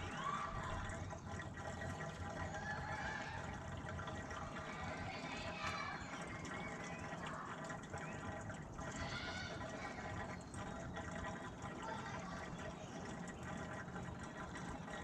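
Diesel fuel pouring steadily from a fuel can into a Terex PT75 tank, with a few short gurgles.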